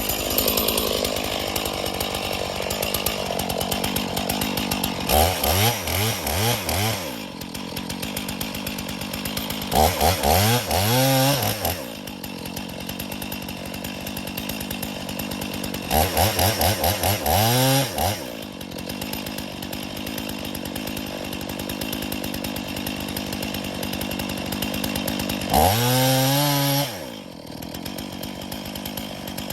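Stihl chainsaw running at low revs and opened up to high revs four times, each burst lasting a couple of seconds before it drops back.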